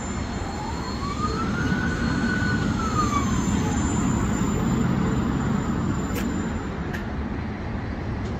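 Steady low rumble of city traffic, with a distant siren wailing up and then down once in the first few seconds.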